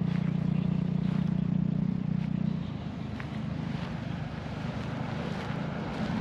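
Steady low engine drone that drops away about two and a half seconds in, over a background of outdoor noise.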